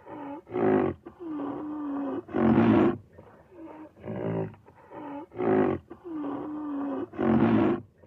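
Rhinoceros calls: short moaning calls with a clear pitch alternate with loud, harsh blasts. The same sequence of calls is heard twice.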